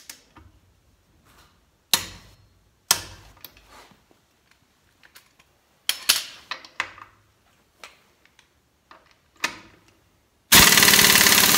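Several sharp clinks and knocks of hand tools being lifted and set down on a concrete floor, then near the end a modified air impact wrench on 130 to 150 psi shop air starts hammering rapidly and loudly on a lug nut torqued to 100 ft-lbs, testing whether it can break the nut loose.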